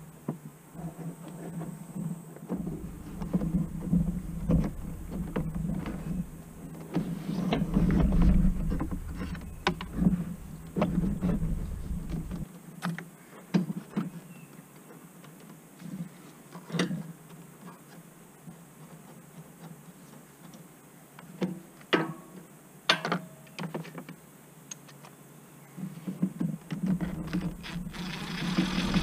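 Irregular clicks and knocks of plastic ATV body panels and covers being handled and pressed into place. Near the end a cordless drill/driver runs briefly, driving a panel fastener.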